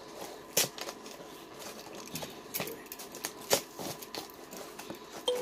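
A key being dragged through the packing tape on a cardboard box: irregular scraping and crackling, with keys on the key ring jangling. Sharp clicks stand out about half a second in and again about three and a half seconds in.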